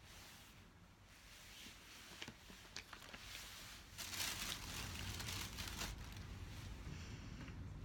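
Faint rustling and handling noise with a few light clicks. The rustling grows louder about halfway through, as an arm reaches out to the side.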